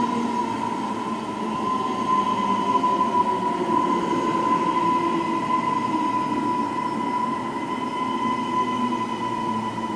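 Queensland Rail NGR electric multiple unit running past along the platform: a steady rumble of the train with a steady high-pitched whine over it, easing slightly near the end.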